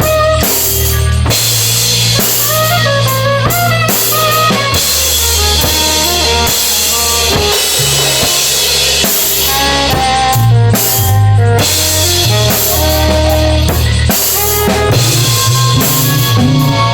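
Improvised live band playing: a drum kit keeps a busy beat with bass drum and snare. Bass notes change every second or so, and a bending melody line runs above them.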